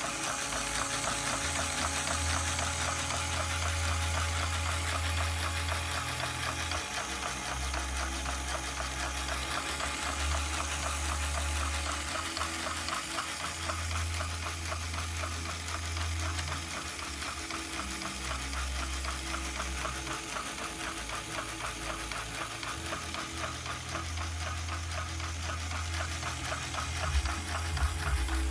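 LEGO pinsetter mechanism running on a single electric motor: a steady, fast whirring rattle of plastic gears, pulleys, rubber-band belts and linkages turning together, with a few louder clacks near the end.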